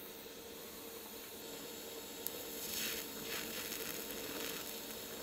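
Lift-TIG welding arc on thin sheet steel, struck with a click about two seconds in and then hissing faintly for about two seconds as a short stitch weld is laid, over a steady faint hum.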